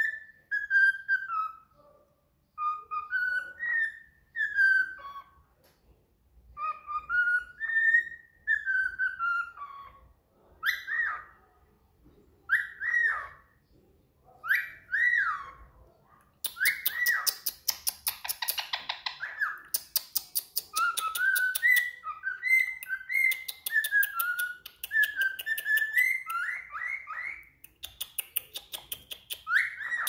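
Cockatiel whistling a tune in short phrases that rise and fall, each a second or two long. From about halfway on, a fast rasping chatter mixes in with the whistles and stops shortly before the end.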